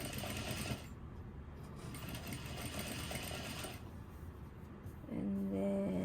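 Domestic sewing machine stitching through flannel in two short runs with a pause between. About five seconds in, a steady low humming tone begins and is the loudest sound.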